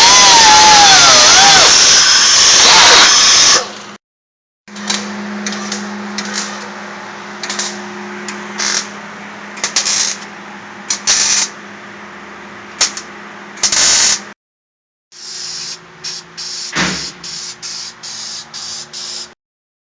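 An air tool runs loudly for the first few seconds, its pitch wavering. After a cut, a MIG welder fires a series of short plug-weld bursts over a steady low hum, joining the new floor patch panel in with spot welds.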